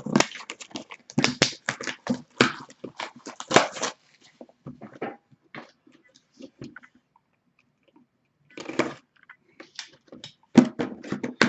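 Trading-card box packaging being torn open and handled: dense crackling and tearing for the first few seconds, then scattered clicks and rustles, and another burst of tearing near the end.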